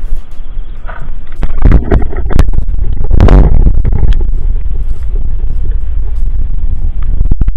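Wind buffeting the camera microphone: a loud, constant low rumble with stronger gusts about two and three seconds in.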